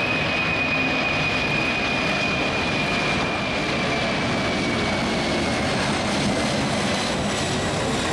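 Boeing 747 jet engines heard as the airliner passes, a steady rushing noise with a high whine that slowly falls in pitch.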